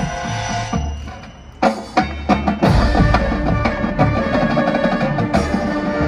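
Marching band and its front-ensemble percussion playing. The music thins out and drops quieter about a second in, then two sharp percussion hits come, and the full band comes back in loud, with drums under it, from about halfway through.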